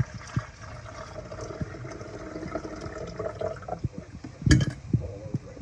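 Water being poured into a Mr. Coffee drip coffee maker's reservoir, a steady filling sound for about three seconds, then a sharp clunk about four and a half seconds in.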